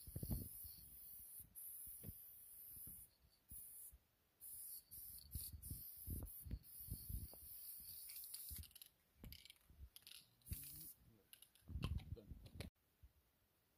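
Aerosol spray paint cans hissing in short, repeated passes, with faint knocks and clicks from handling the cans. The sound cuts off abruptly near the end.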